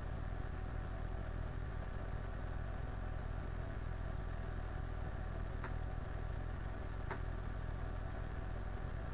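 Steady low background hum of the room and recording equipment, with two faint clicks about six and seven seconds in.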